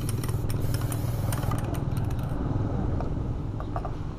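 Aerosol spray paint can hissing as paint is sprayed onto a car wheel, stopping about two and a half seconds in. A steady low hum runs underneath throughout.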